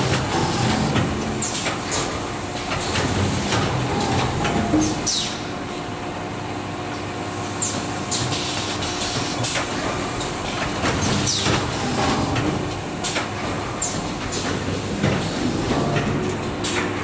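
Automatic paint roller finishing machine running: a steady mechanical rattle and hum, broken by short, sharp hisses every one to three seconds.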